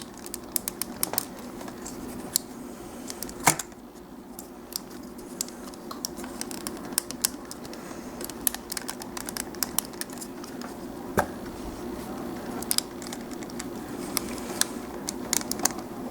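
Small plastic clicks and taps as the parts of a Transformers Air Raid figure are handled and worked loose from their tabs, with a louder click about three and a half seconds in. A steady low hum runs underneath.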